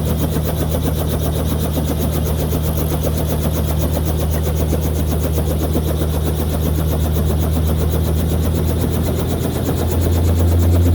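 Helicopter engine and rotor running with a steady low hum and a fast, even chop. It gets louder and higher about ten seconds in as the rotor speeds up.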